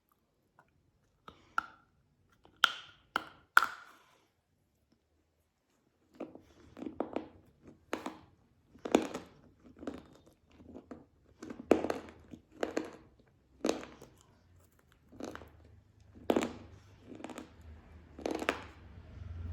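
Crisp snaps and crunches of a black KitKat-type bar being crunched: a few sharp snaps, a short pause, then a steady run of crunches about once a second.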